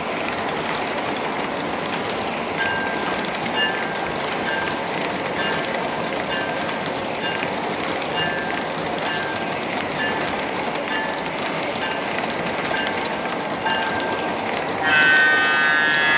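O-gauge model passenger cars rolling steadily over three-rail track, with a bell dinging at an even pace from a few seconds in. Near the end a loud horn sounds for about a second and a half.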